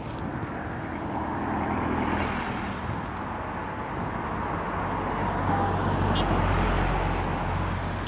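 City road traffic: cars and a small truck driving past, a steady wash of engine and tyre noise. A low engine rumble swells in the second half as a vehicle goes by, then eases near the end.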